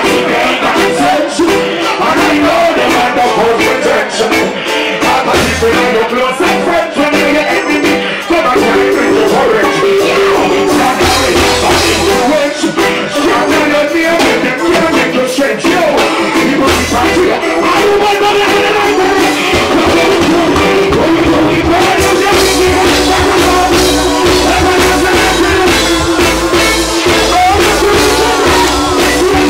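Live reggae band with electric guitar, bass and drum kit, with a male vocalist singing into a microphone over it. The bass line drops in and out in the first half and runs steadily from about twenty-two seconds in.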